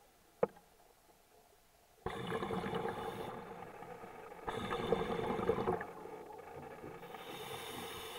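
Scuba diver breathing underwater through a regulator: bursts of bubbling exhalation and a hiss of inhaled air, starting suddenly about two seconds in. A single sharp click comes just before.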